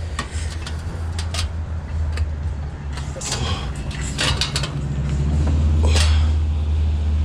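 Stainless steel sheet being bent by hand, with scattered metallic clicks and scrapes from the workpiece, over a steady low hum that grows louder near the end.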